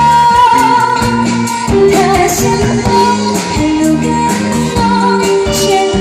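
A woman singing a Chinese pop ballad with a live band of electric guitars, keyboard and drums, amplified through a stage PA.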